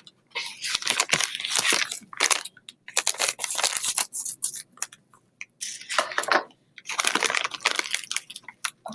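Jelly-bear candy packet crinkling and tearing in irregular bouts as it is pulled and squeezed by hand, a wrapper that is hard to get open.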